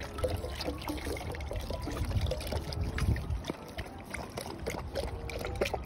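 Water pouring from a plastic jug into a steel dog bowl while a German Shepherd laps at the stream, then the dog lapping water from the bowl.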